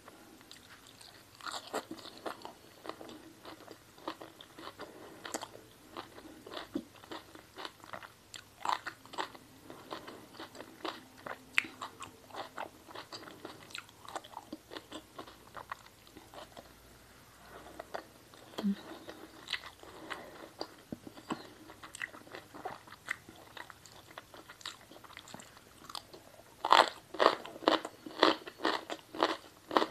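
Close-miked mouth sounds of a person chewing and biting into crunchy food, with frequent short crisp crunches. There is a quieter lull in the middle, and a loud, rapid run of crunches near the end.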